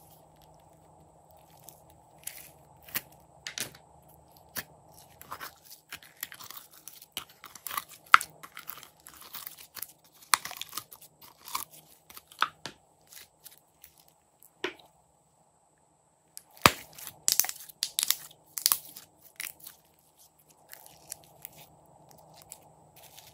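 Glossy slime squeezed out of a plastic bottle and worked by hand, making irregular sticky pops and crackles. A short pause falls about two thirds of the way in.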